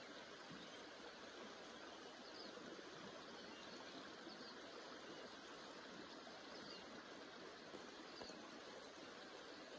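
Near silence: a faint, even hiss of outdoor background, with a few very faint, short, high chirps.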